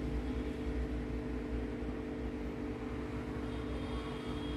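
Steady background hum: a low drone with a couple of steady mid-pitched tones over a light hiss, unchanging throughout.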